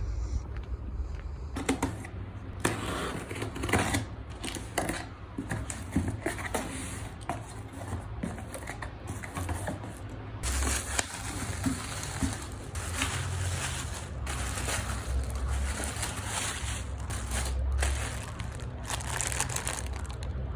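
A parcel being unwrapped by hand: irregular crinkling and tearing of packaging, with clicks and knocks as parts are handled.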